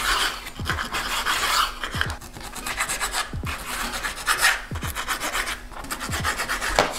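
Small kitchen knife dicing guanciale (cured pork cheek) on a wooden cutting board: scratchy cuts through the fat with the blade knocking on the board at irregular intervals.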